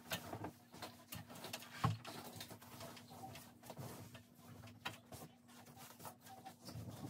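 Faint, irregular clicks and taps of someone eating chili from a bowl with a spoon, with chewing, over a faint steady hum.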